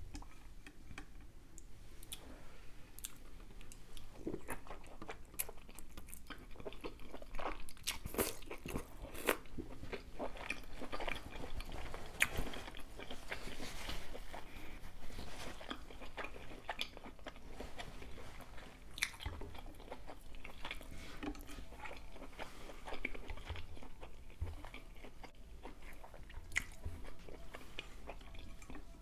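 Close-miked eating sounds: a person biting and chewing seafood boil in butter sauce, with many irregular wet clicks and smacks of the mouth.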